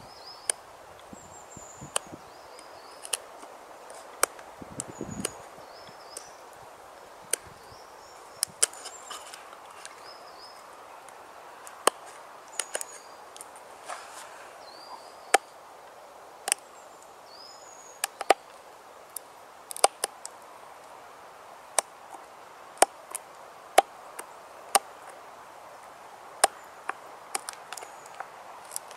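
A bushcraft knife cutting into green wood, giving sharp irregular clicks every second or so as the blade bites in, carving small notches and grooves into wooden pegs. A small bird chirps faintly throughout.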